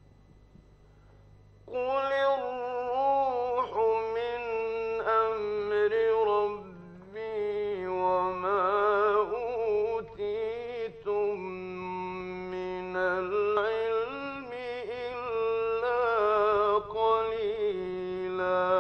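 A male Qur'an reciter chanting in the melodic tajwid style: long ornamented phrases that waver in pitch, starting about two seconds in, with a short break for breath near seven seconds. A steady low hum runs underneath.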